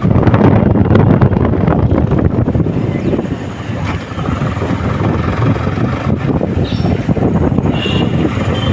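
Riding a Yamaha R15 motorcycle at speed: heavy wind buffeting the microphone over the bike's engine and road noise.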